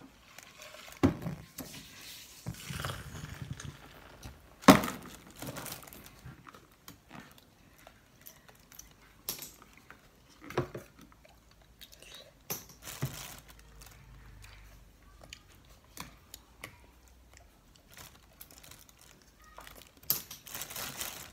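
Scattered light knocks and taps, the sharpest about five seconds in, mixed with paper crinkling and tearing as a toddler handles food and peels small wrappers over a plastic bowl.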